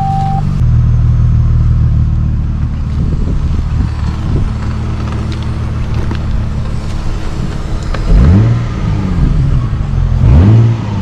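Nissan 350Z's 3.5-litre V6 idling through its current X-Force muffler with a small burble. It is revved briefly twice near the end, each rev rising and falling in pitch.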